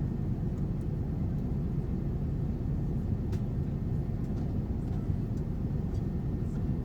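Steady low rumble of an Airbus A380-800's cabin noise, engine and airflow drone heard from inside the economy cabin, with a faint click about three seconds in.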